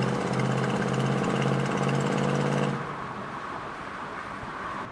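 Ford Mustang GT's Coyote 5.0 V8 running at a steady cruise, heard from inside the open convertible; about three seconds in the engine note drops away, as on lifting off the throttle, leaving wind and road noise.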